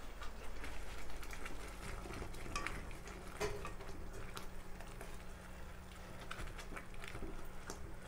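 A spatula stirring paneer cubes into thick spinach gravy in a nonstick pan: soft scraping and scattered small clicks against the pan.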